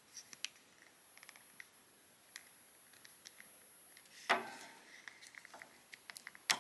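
Light plastic clicks and taps from a posable action figure being handled and its joints moved, with one louder knock about four seconds in and a quick run of clicks near the end.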